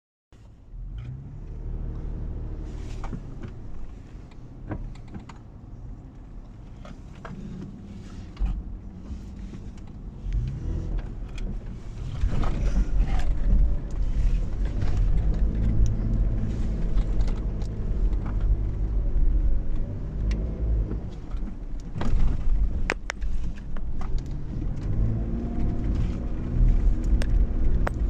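Toyota Prado SUV engine pulling under load during off-road driving, its pitch rising and falling with the throttle over a heavy low rumble. The rumble gets louder about halfway through, with scattered knocks and rattles throughout.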